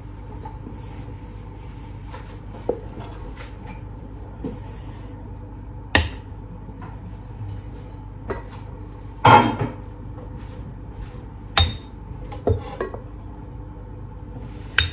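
Metal spoon scraping and clinking against a stainless steel saucepan as thick chocolate batter is spooned out into ramekins. There are several sharp clinks, the loudest about nine seconds in, over a steady low hum.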